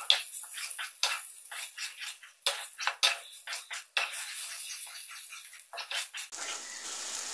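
Spatula stirring grated water chestnut paste frying in ghee in a nonstick kadai: sizzling with irregular scraping strokes, several a second. About six seconds in, the sound turns to a steadier hiss.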